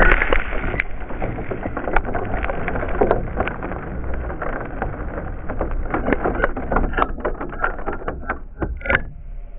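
A spray of sand and grit hits the onboard camera of a stopped RC truck, then loose grit ticks and clicks irregularly on the camera and body, the clicks thickening toward the end, over a steady low rumble.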